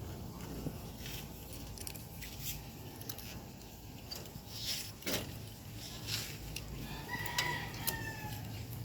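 A rooster crowing once near the end, one call of about a second that falls slightly at its close. Scattered sharp clicks and knocks sound throughout, the loudest about halfway.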